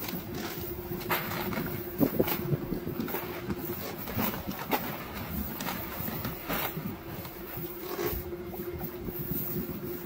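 Cast net being lifted and shaken over a wooden deck to empty it of fish: its weighted bottom line knocks and rattles on the boards in scattered, irregular knocks. A steady hum runs underneath, fading out for a few seconds in the middle.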